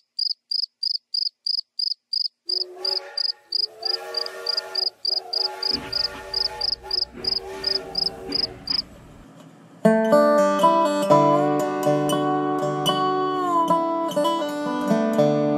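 Rapid, evenly spaced insect chirping, about three chirps a second, stops about nine seconds in. Soft instrumental music fades in under it about two and a half seconds in. Louder instrumental music takes over at about ten seconds.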